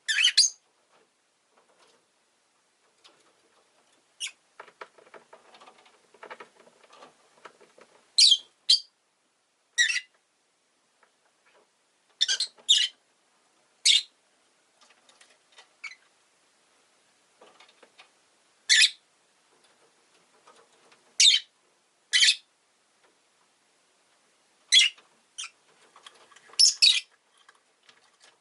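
Rosy-faced lovebird giving short, loud, high-pitched chirps every second or two, with a soft, low chattering for a few seconds about four seconds in.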